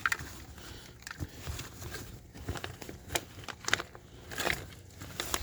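Irregular clicks, knocks and plastic crinkling as things are handled.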